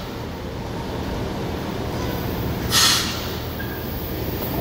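São Paulo Metro train L42 starting away from the platform, its electric motors and wheels giving a steady low rumble. A short hiss cuts in about three seconds in.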